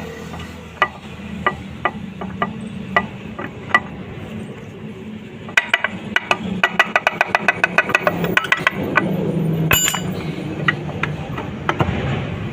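Light metallic clicks and clinks of hand tools and engine parts being handled while a gasket and side cover go onto a TVS XL 100 moped engine. A few scattered clicks come first, then a quick run of about six clicks a second in the middle, then one sharp ringing clink of metal near the end.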